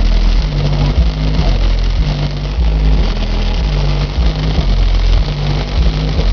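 Rap track played very loud through an 18-inch JBL subwoofer in a car: a deep bass line that steps between notes in a steady repeating pattern.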